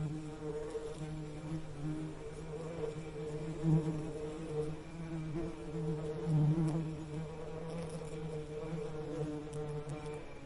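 Bees buzzing in a steady, wavering hum that swells louder briefly a couple of times.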